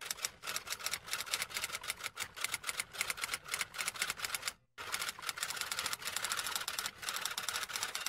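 Typewriter sound effect: a rapid run of typewriter keystrokes, several a second, with a short break about halfway through.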